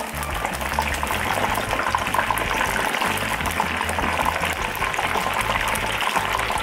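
Batter-coated chicken pieces frying in a pot of hot oil: a dense, steady sizzle and crackle of bubbles. This is the second fry at a higher oil temperature, with moisture in the batter boiling off to crisp the coating.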